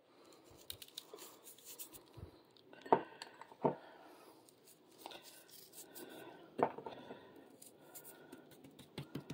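Faint clicks and rustling of hands sprinkling dry seasoning over raw chicken breasts on a plastic tray, with a few sharper taps.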